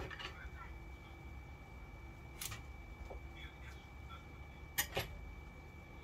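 Electrical tape being pulled off the roll and wrapped: a few short rasping pulls, one about halfway through and two close together near the end, over a low steady room hum.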